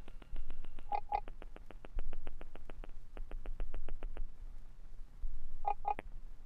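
Glitchy electronic drone music built in the Koala Sampler app from no-input mixer samples. A fast, even train of clicks runs about eight a second and drops out for stretches. Low thumps recur about every second and a half, and short paired blips come about a second in and again near the end.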